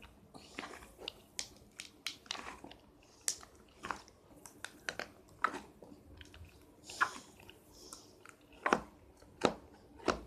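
Slime being squeezed and pressed by hand, giving off irregular sharp pops and clicks, the loudest two about nine seconds in.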